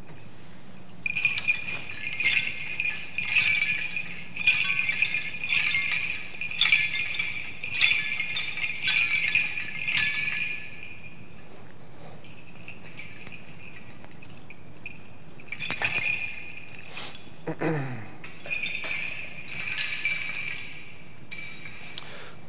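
Small bells on a swung censer jingling in rhythmic strokes about once a second, pausing for a few seconds midway before starting again.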